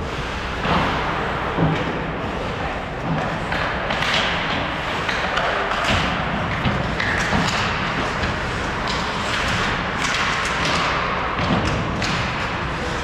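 Ice hockey play on a rink: steady scraping of skate blades on ice, with repeated thuds and knocks of sticks, puck and boards, about seven of them spread across the time.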